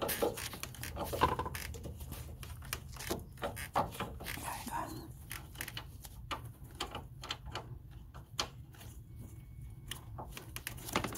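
Small, irregular metallic clicks and taps of nuts being fitted by hand onto the studs of a Honda Odyssey engine mount bracket, with a steady low hum underneath.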